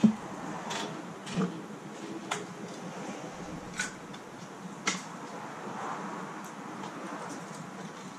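Tools being handled and set down on a wooden workbench: a sharp knock at the very start as a spray-paint can is put down, then about five scattered light taps and clicks as paintbrushes and a scrap-glass palette are picked up and laid down, over a steady faint hiss.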